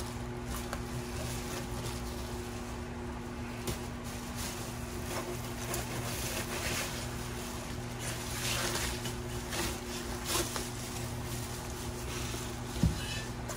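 A steady low hum runs throughout, with a few faint rustles and knocks scattered through it.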